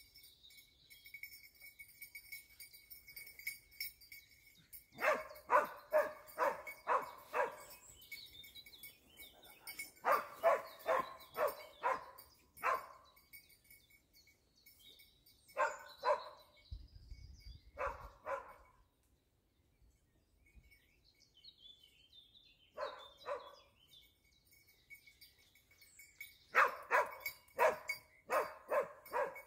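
Dachsbracke hound barking on wild boar, giving voice in runs of five or six quick barks with single pairs between. Birds call faintly in the gaps.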